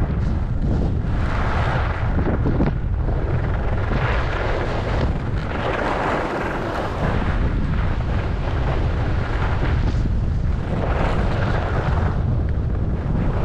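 Wind rumbling on the microphone of a camera carried by a downhill skier, with the hiss of skis sliding on groomed snow swelling and fading several times.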